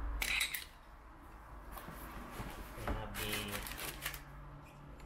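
Packing paper and cardboard rustling as hands handle a clutch disc and dig through a parts box, in three short spells.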